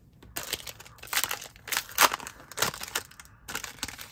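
Foil wrapper of a Disney Lorcana trading-card booster pack crinkling and tearing as the pack is opened: a quick run of sharp rustles starting about half a second in, loudest near the middle.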